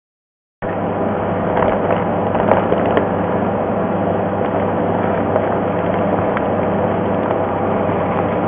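Steady hum and air noise of a glovebox isolator's ventilation running, with faint crinkles and clicks of sterile paper wrap being unfolded by gloved hands. The hum starts abruptly about half a second in.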